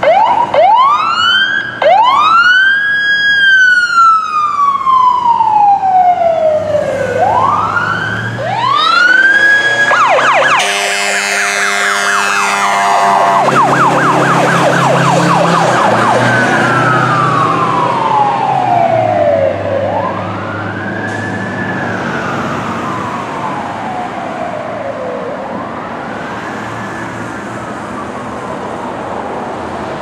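Fire apparatus siren wailing, each sweep rising quickly and falling slowly. The fire engine's air horn blasts loudly about ten seconds in, followed by a few seconds of rapid warbling. The wail then grows fainter as the units drive away.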